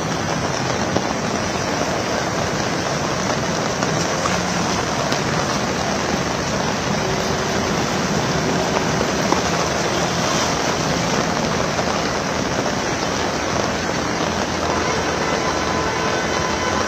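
Heavy rain pouring steadily onto a road, a dense even hiss.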